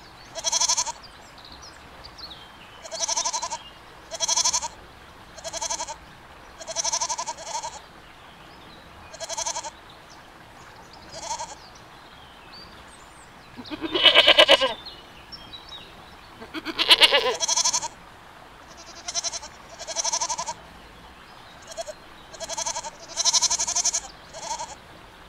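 Goats bleating: a string of short calls about every one to two seconds, with two louder, longer bleats near the middle.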